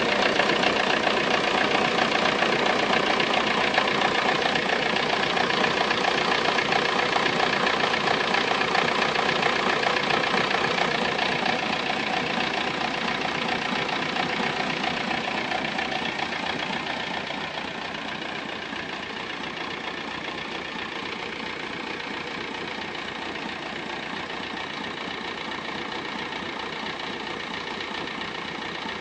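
Volkswagen Golf Mk3 engine idling steadily, with the odd noise the owner is asking to have diagnosed; it gets gradually quieter partway through and then holds steady.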